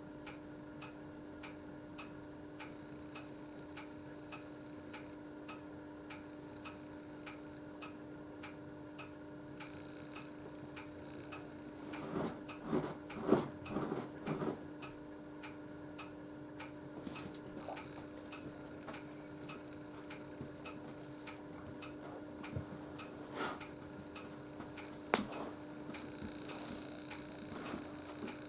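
Quick, steady ticking of a clock over a low, steady hum in a quiet room. About halfway through there is a brief cluster of louder short sounds.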